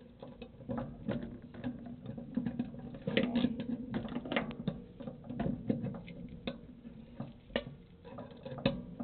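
Quarter-inch drive ratchet with an 8 mm socket clicking as a bolt on the pinsetter's square-shaft drive is turned, in uneven runs of quick clicks with a few single sharp ticks near the end.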